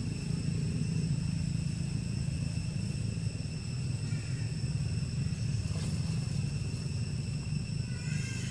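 Steady low rumble with a thin, steady high-pitched ringing over it, and a few faint chirps about halfway through and near the end.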